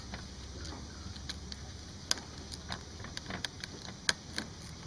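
Scattered light clicks and taps of small tyre-plug repair tools being handled, a few irregular strikes over a low steady hum.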